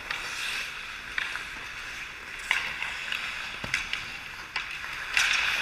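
Ice hockey skates scraping and carving the ice in swishing bursts, with several sharp clacks of sticks and puck during play in front of the net.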